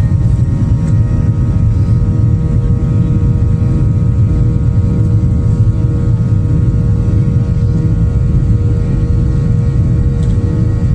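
Airliner engines heard from inside the passenger cabin: a loud, steady low rumble with several steady whining tones above it as the plane rolls along the runway.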